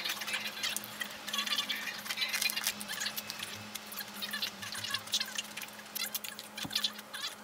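Close-miked chewing and mouth sounds of someone eating grilled pork belly with rice and pickled radish: quick, irregular, crackly, wet bites, with a faint steady hum underneath.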